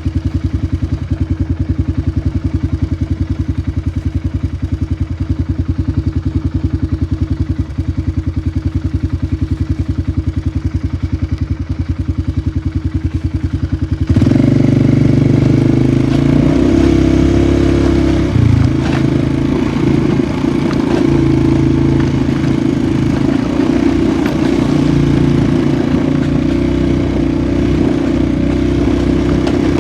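Polaris 450 ATV engine idling with a steady, even pulse. About halfway through it abruptly gets louder and runs under load with some clatter as the quad rides off.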